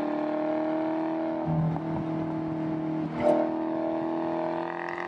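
2020 Dodge Charger SRT Hellcat Widebody's supercharged 6.2-litre V8 running at steady revs, its pitch sagging slightly, with two short surges about one and a half and three seconds in.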